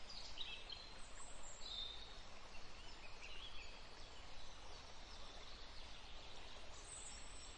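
Faint steady background hiss and low hum, with scattered faint, short high chirps.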